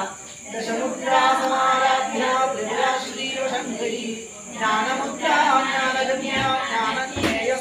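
Priest chanting Sanskrit mantras in a steady sung recitation, phrase after phrase with short breaths between.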